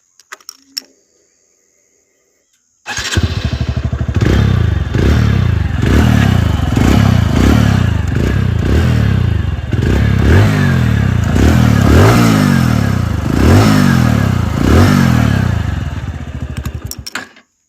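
TVS Radeon BS6 motorcycle's 110 cc single-cylinder engine starting about three seconds in, revved repeatedly about once a second, then switched off near the end. The engine gives a metallic 'khan khan khan' clanking that the owner cannot explain despite on-time servicing.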